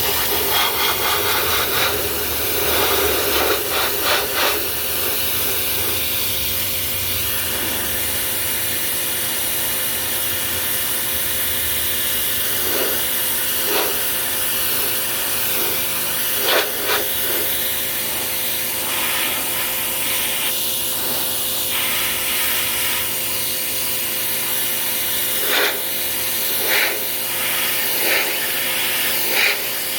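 Pressure washer running, its jet spraying water steadily against a car's bodywork as a continuous hiss, with brief louder bursts several times.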